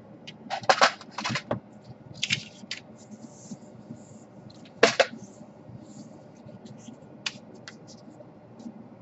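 Small clicks and scrapes of hard plastic being handled, as a laptop DC power jack with its side wings trimmed off is worked into its seat. A cluster comes about a second in, and the loudest single click falls about halfway through.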